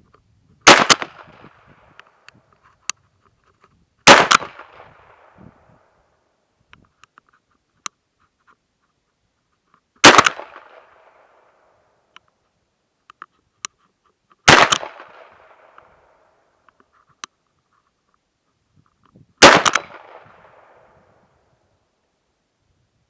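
Smith & Wesson Model 327 TRR8 .357 Magnum revolver fired five times, a few seconds apart, each shot trailing off over a second or so, with faint small clicks between shots.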